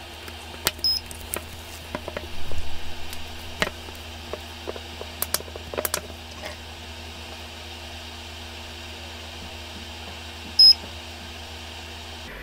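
Small clicks and handling noise as an iPhone display's flex cable is pressed onto the connector of an iPhone 7/8 screen chip programmer. The programmer gives a short high electronic beep about a second in and a much louder one near the end, while it writes and then verifies the display data. A steady low hum runs underneath.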